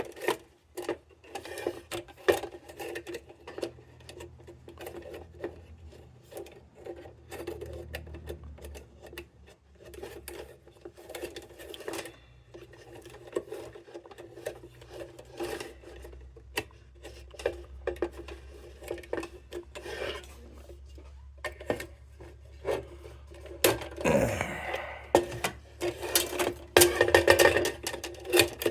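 Steel lantern parts being handled and fitted together: repeated light clicks and clinks with metal scraping and rubbing, louder for a few seconds near the end.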